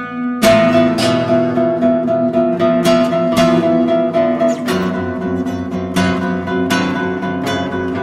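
Background music: an acoustic guitar playing chords, strummed again and again.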